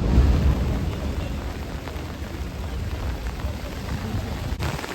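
Deep boom of a large firework shell bursting, its low rumble rolling and slowly fading over several seconds, with steady rain hiss underneath.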